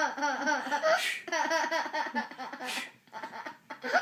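A small child laughing in quick repeated bursts, dying down about three seconds in.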